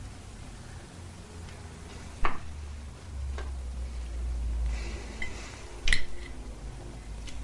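Dishes and cutlery clinking at a dinner table: a few sharp clinks, the two loudest about two and six seconds in, over a low steady rumble.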